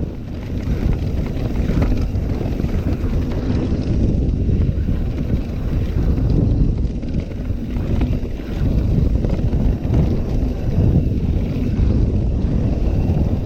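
Mountain bike descending a rough dirt trail: wind buffeting the microphone over the rolling noise of the tyres, with occasional faint knocks and rattles from the bike.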